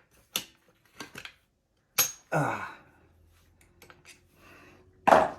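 Metal hand tools clinking and scraping against a freeze plug in an engine block as pliers try to grip and pull it out: scattered light clicks, a sharp metallic strike about two seconds in with a brief ring, and a louder clank near the end.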